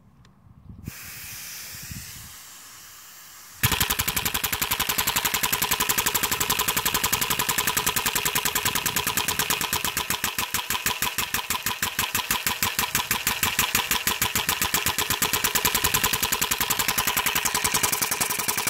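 Homemade single-cylinder compressed air engine with a solenoid inlet valve: air hisses from about a second in, then about three and a half seconds in it starts running with a fast, even rhythm of sharp air pulses that holds steady. It runs without an exhaust timing valve, its exhaust only restricted by a makeshift fitting.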